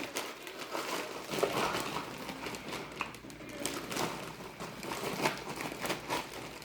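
Strawberries being tipped into the plastic bowl of a Tupperware Power Chef pull-cord chopper: scattered soft thuds and light plastic clicks.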